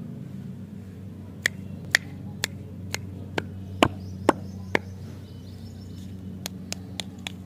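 A run of eight sharp, evenly spaced taps, about two a second, followed by a few fainter clicks near the end, over a steady low hum.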